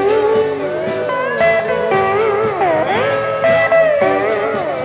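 Electric guitar played with a slide, notes gliding smoothly up and down between held pitches, over a rock band backing track.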